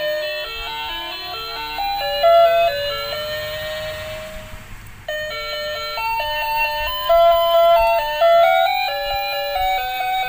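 Toy ice cream cart playing its electronic ice-cream jingle, a simple beeping melody of stepped notes. The tune breaks off about five seconds in and starts again.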